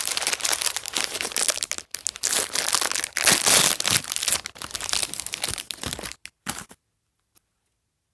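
Plastic wrapper around a toy doll crinkling and tearing as it is torn open, with many quick crackles; it cuts off suddenly about two-thirds of the way through, followed by dead silence.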